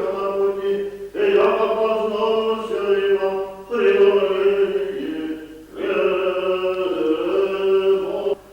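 Voices chanting an Orthodox liturgical chant in long held notes, in four phrases separated by short breaks for breath.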